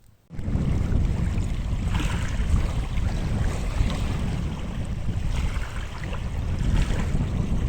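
Wind buffeting the microphone: a loud, uneven low rumble with a hiss on top, starting suddenly just after the start.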